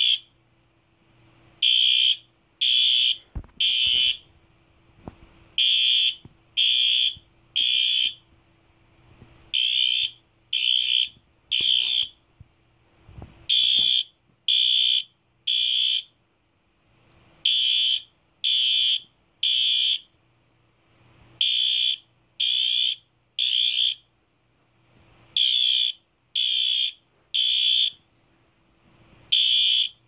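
Two System Sensor SpectrAlert Advance P2R fire alarm horns sounding the temporal code 3 evacuation signal, set on low. They give three high, kind-of-loud beeps, then a short pause, repeating about every four seconds.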